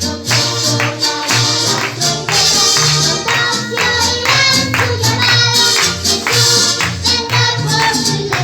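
A lively song with a tambourine jingling on the beat and voices singing over it.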